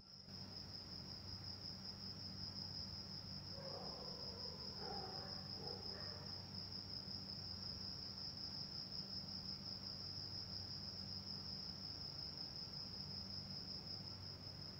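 Faint, steady high-pitched cricket trill without a break, over a low hum. Faint distant voices come through briefly about four to six seconds in.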